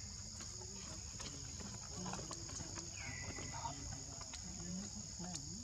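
Steady high-pitched insect chorus, with a few faint clicks and a short falling call about three seconds in.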